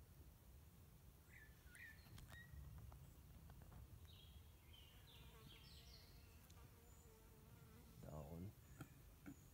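Near silence with faint outdoor ambience: a few distant bird calls, including a short run of falling notes midway, and a brief buzz near the end, like a passing fly.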